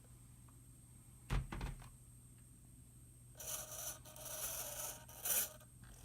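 RC snowcat's electric drive and tracks running over snow: a grinding, whirring run for a couple of seconds starting about halfway in, after a single knock about a second in.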